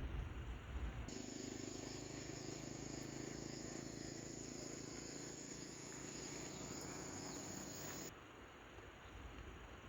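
Insects trilling, a steady high-pitched chirring over a soft hiss. It cuts in suddenly about a second in and stops abruptly near the end.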